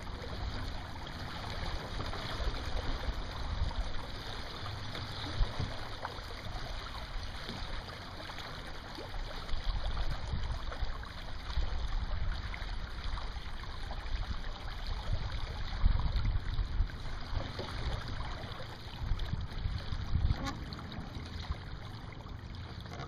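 Water gurgling and lapping along a small Sunfish sailboat's hull as it sails, with wind buffeting the microphone in a steady low rumble.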